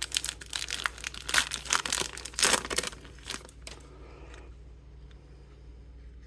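A baseball card pack's wrapper being torn open and crinkled by hand. Dense crackling rustle for about four seconds, then it dies down.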